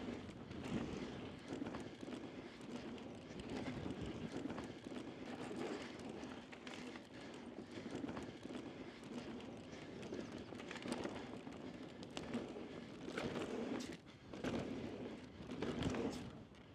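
A mountain bike rolling fast down a dusty dirt trail: steady crunching of the tyres on loose dirt, with irregular clicks and rattles from the bike over bumps and a few harder knocks near the end.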